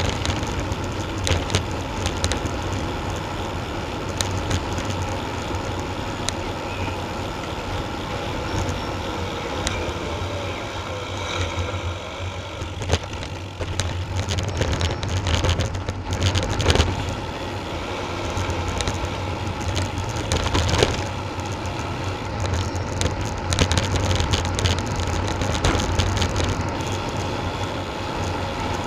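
Wind buffeting a bicycle-mounted action camera's microphone at speed, over the steady rumble of tyres on tarmac, with occasional short knocks from bumps in the road.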